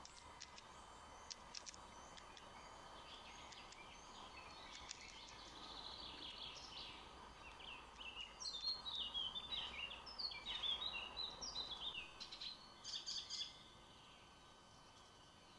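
Birds chirping and calling in quick high notes, sparse at first and then thick, before stopping suddenly a couple of seconds before the end, over a faint steady outdoor hum.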